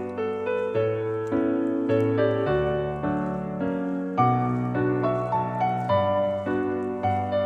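Background piano music: notes struck in a flowing pattern over sustained low chords that change every second or so.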